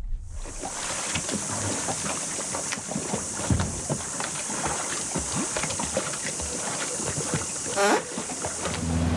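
Water lapping and splashing in small irregular slaps, over a steady high-pitched hiss, with a brief squeak just before the end.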